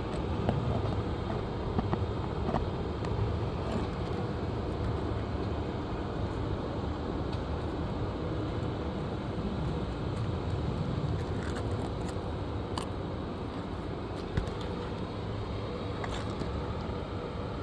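Nails being pried out of asphalt 3-tab shingles: a few sharp clicks and taps of the tool against nail and shingle, over a steady low rumble of background noise.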